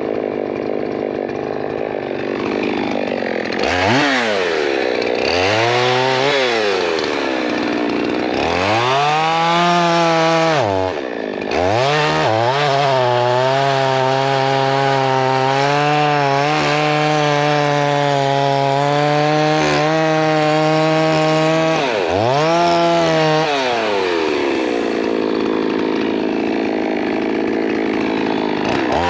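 Poulan Pro Super 380 two-stroke chainsaw idling, then blipped up and down several times. It is held at high, steady speed for about ten seconds while bucking pine, then drops back to idle and revs once more near the end.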